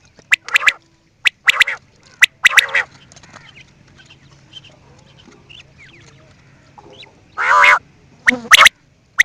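Quail calling: three short calls in the first three seconds, a lull with faint chirps, then a longer, louder call about seven and a half seconds in and two sharp calls near the end.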